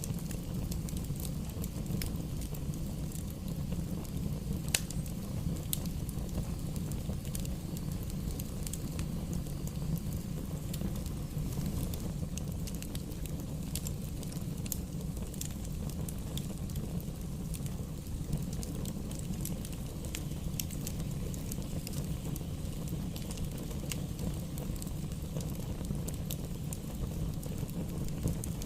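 Wood fire burning in a fireplace: a steady low rumble of flames with frequent sharp crackles and pops, one louder pop about five seconds in.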